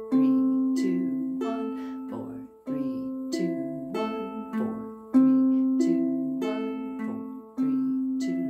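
Ukulele in low-G tuning fingerpicked slowly on an A minor chord, one string at a time, thumb on the low G string, then the C, E and A strings. Single notes come about every half second and ring into one another, with a stronger note opening each repeat of the pattern about every two and a half seconds.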